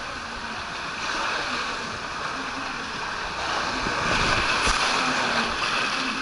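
Water rushing under a rider's inflatable tube as it slides down a water slide chute, then loud splashing and churning as the tube shoots out into the splash pool about four seconds in.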